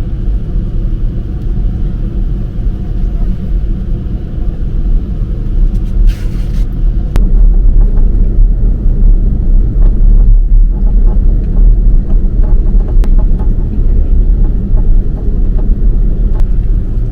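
Steady low rumble inside an Airbus A330-300 cabin with the engines running as the airliner taxis. It grows louder about seven seconds in, with a few faint clicks.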